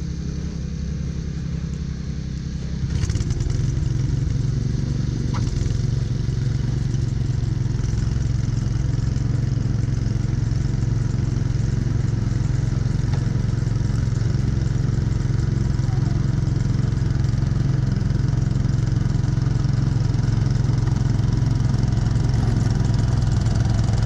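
Two-stage snowblower's engine running steadily under load while the auger and impeller throw snow out of the chute. It gets louder about three seconds in, with a rushing hiss of snow over the engine hum.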